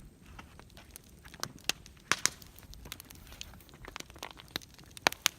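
Campfire crackling: burning wood snapping and popping in irregular sharp cracks. The loudest pops come about two seconds in and again near the end.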